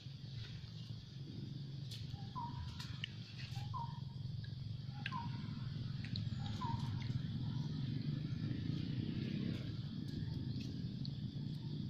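Steady low outdoor rumble, with a short animal call repeated four times, about a second and a half apart, a few seconds in.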